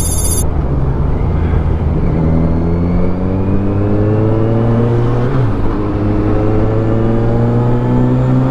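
Kawasaki Versys 1000 SE's four-cylinder engine pulling under acceleration on the road, rising steadily in pitch. About five seconds in the pitch drops sharply at a single upshift, then climbs again.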